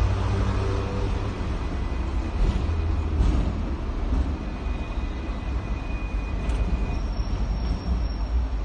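Hong Kong double-decker tram running along its rails, heard from the upper deck: a steady low rumble with a few faint clicks. A thin high whine comes in near the end.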